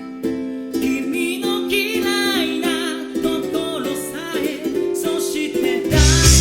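A song played on ukulele and acoustic guitar with a sung lead vocal, the ukulele strumming steady chords. About six seconds in comes a heavy low drum hit.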